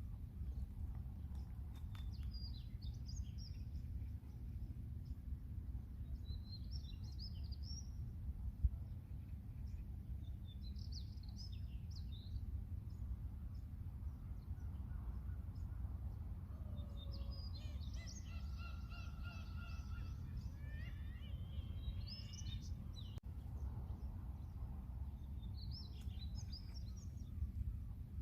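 Seagulls calling: short bursts of high calls every few seconds, with one longer, more drawn-out call about two-thirds of the way through, over a steady low rumble.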